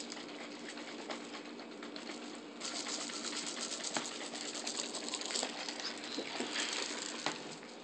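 Plastic bottle of Skittles in liquor being shaken, the candies rattling in the liquid as a dense patter of small clicks. The shaking gets busier and louder about two and a half seconds in and eases off near the end.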